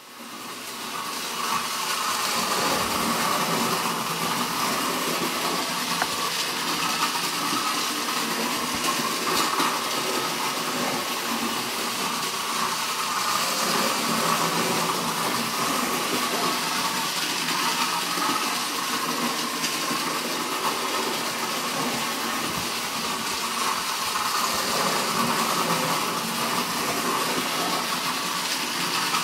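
Battery-powered Distler H0 toy locomotive running on its track: a steady whir of its small electric motor and gearing with a light rattle of wheels on rail. The sound fades in over the first second.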